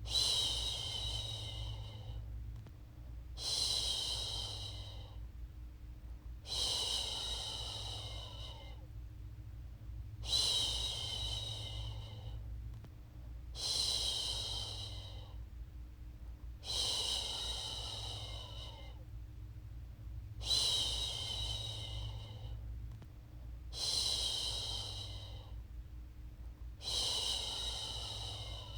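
A woman's voice shushing a baby to sleep: a long "shhh" about every three and a half seconds, each one fading away over about two seconds, over a steady low hum.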